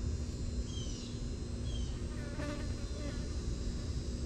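Steady insect buzzing, with a few short falling chirps over it and a low steady rumble underneath.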